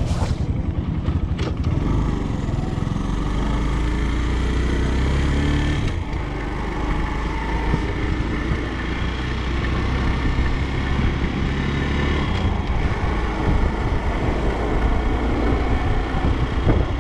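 Motorcycle engine running as the bike rides along, a steady low drone with road noise; the engine note shifts a few seconds in.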